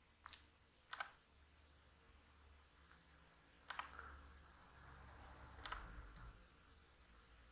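About five short, sharp clicks from a computer keyboard and mouse, among them repeated presses of the N key, over a faint low hum.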